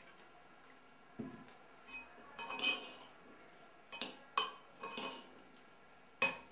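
A spoon clinking and knocking against a glass bowl of corn mixture. The knocks are scattered: a cluster about two and a half seconds in, several more between four and five seconds, and the sharpest, loudest one near the end.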